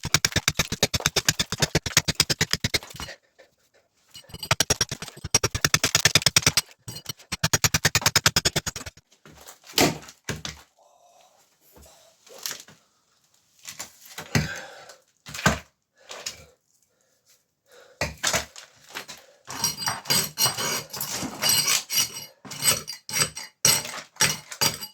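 Demolition knocking on a bathroom floor fixture being broken out: two runs of rapid, evenly spaced knocks a few seconds each, then scattered single knocks, then a stretch of dense, irregular clattering near the end.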